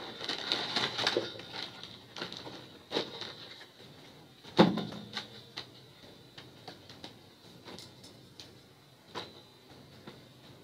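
Scattered light knocks and clatter of stage props and toys being handled, with one louder thump about four and a half seconds in. A faint steady high hum runs underneath.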